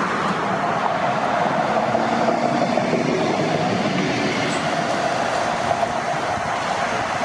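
Tram running past on street track, its wheels on the rails making a steady rushing rail noise with a steady whine running through it.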